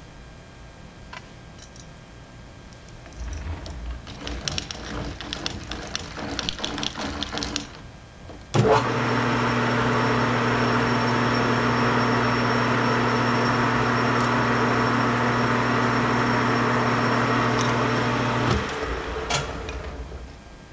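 Small metal lathe starting suddenly and running steadily for about ten seconds, a motor hum with a high whine over it, while it turns a plastic slide wheel on a mandrel. It then switches off and spins down. Before it starts there are clicks and rattles as the workpiece is fitted in the chuck.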